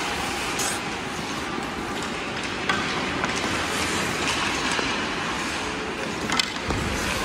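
Steady rumbling scrape of ice skate blades and goalie leg pads sliding across rink ice, with a few sharp scraping clicks.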